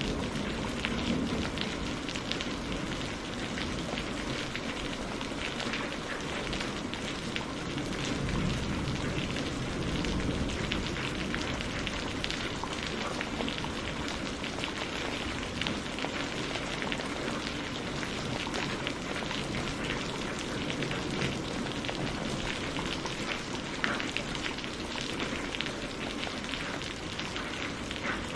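Steady rain falling, with the crackle of a wood fire running through it and a low rumble underneath that swells now and then.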